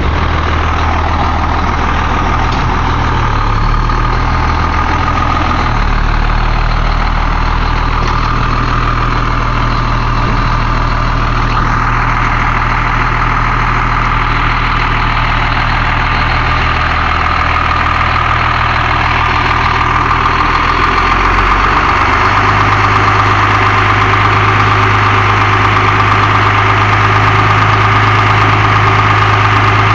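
Fire engine's diesel engine running steadily close by while it pumps water to a hose line, with a steady high whine over the engine note. The engine note shifts to a new steady speed a few times and gets slightly louder in the last third.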